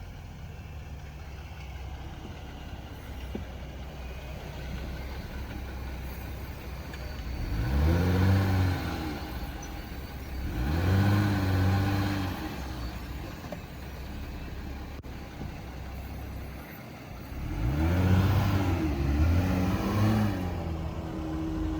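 Jeep engine working its way up and over an off-road trail obstacle, idling low and then revving up and back down in three surges: about a third of the way in, just past the middle, and a longer one near the end.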